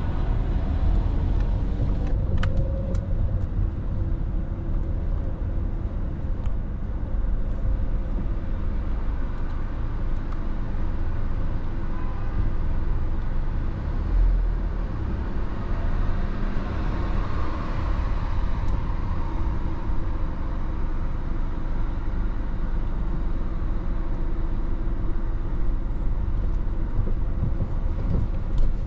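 Car driving through city traffic: steady low rumble of engine and road noise. A swell of noise, like a passing vehicle, comes about two-thirds of the way through, and a few faint clicks are scattered through it.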